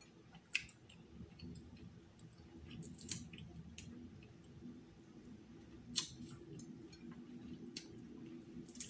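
Shellfish shell being cracked and peeled by hand and chewed, giving a few sharp crackling clicks a second or two apart, over a faint low steady hum.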